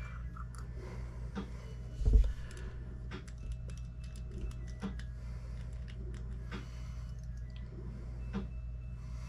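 Small metallic clicks and taps of a 7/16 wrench and outboard-carburetor parts being handled, with one louder thump about two seconds in, over a low steady hum.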